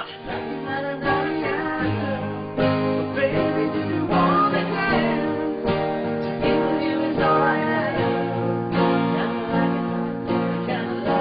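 Acoustic guitar playing a pop song's opening chords, with a wordless vocal line in places.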